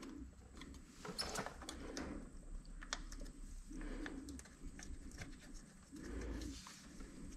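Faint small clicks and scrapes of a pocket knife and a bolt working at the gasket edge of an engine's side cover. A few soft, low murmuring sounds come in at irregular intervals.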